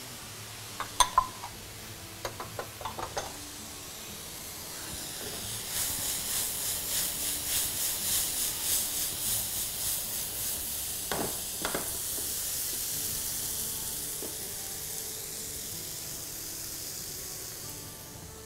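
Vermicelli with peas frying in a pan with a steady sizzle. A utensil clinks against the pan a few times near the start. It is then stirred in a rhythmic scrape of about two or three strokes a second for several seconds, with two knocks around the middle.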